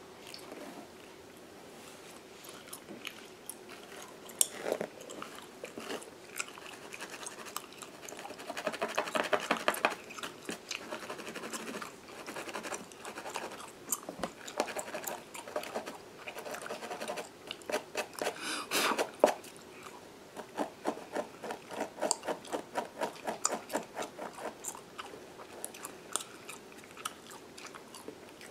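Close-miked gum chewing, with wet smacks and clicks coming in quick runs, mixed with fingernails and a fine-tooth lice comb scratching through a mannequin's hair and scalp.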